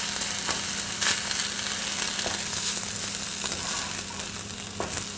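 Glutinous rice with chicken and mushrooms sizzling steadily as it pan-fries in oil, with a few light spatula knocks as it is stirred.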